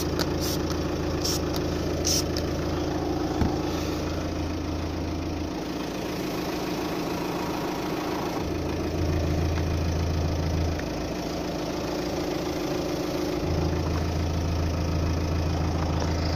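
Car engine idling steadily, its low hum dropping away and coming back twice, with a few short squirts of a trigger spray bottle in the first couple of seconds. It is an exhaust leak test with soapy water on the rear silencer seams, which leak at both the front and the back seam.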